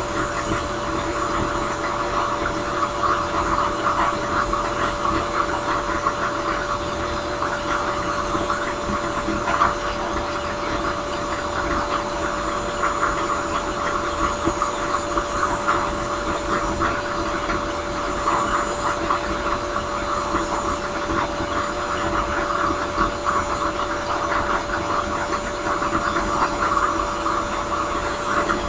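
A drill press spinning a sanding drum, its motor running with a steady hum, while a wooden tobacco-pipe blank is pressed against the drum and sanded, giving a continuous rough rasp.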